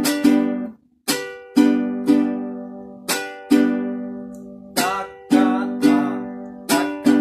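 Jarana huasteca strummed in a manico, the rhythm pattern used to accompany zapateados and norteño huapangos: sharp chord strokes in short groups of two or three, the same chord ringing out and fading between groups.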